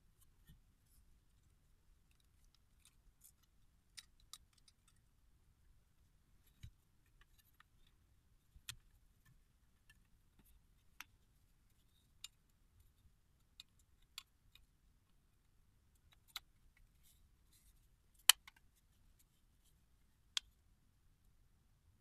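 Scattered small metal clicks and taps from a mortise lock body being handled as its cover plate is fitted over the mechanism, irregular and spaced a second or two apart, with a sharper click near the end.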